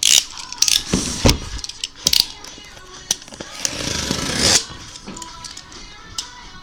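Handling sounds on a tabletop: scattered sharp clicks and knocks, with a rustle building about four seconds in and ending abruptly.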